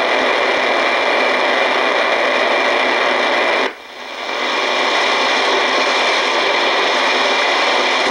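Loud, steady static hiss from an Icom shortwave communications receiver in AM mode as its tuning knob is turned across empty frequencies of the 22-metre band. The hiss drops out briefly just under four seconds in, then returns.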